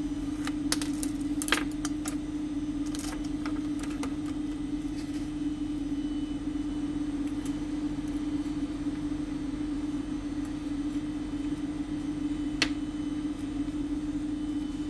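A steady low hum with small sharp clicks and taps over it, several in the first few seconds and one sharper click near the end, like parts and tools being handled on a workbench.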